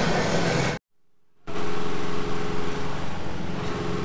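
A dense rush of street noise cuts off abruptly just under a second in. After a short silence, a small petrol engine, such as that of street-works equipment, runs steadily with a low, even hum.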